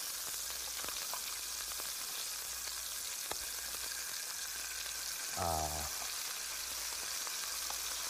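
Sea scallops searing in hot olive oil in a pan, a steady sizzle with a few faint ticks. A brief vocal sound about five and a half seconds in.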